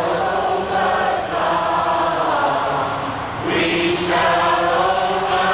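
Large crowd of protest marchers chanting a slogan in unison, in long held phrases that repeat about every two seconds.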